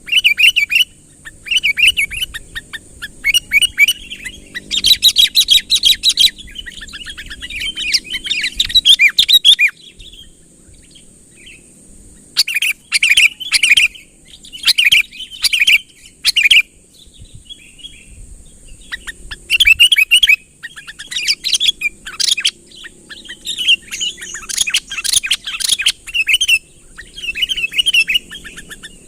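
Sooty-headed bulbul calling excitedly: repeated bursts of quick, bubbly chirps, broken by a few pauses of a second or two.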